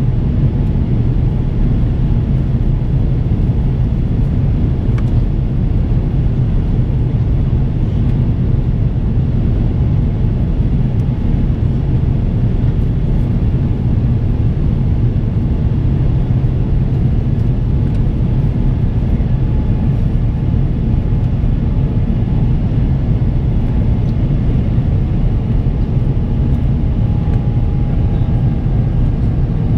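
Steady cabin noise of an Airbus A350-900 in the climb: its Rolls-Royce Trent XWB engines and the airflow over the fuselage, heard from inside the cabin as an even, deep rumble.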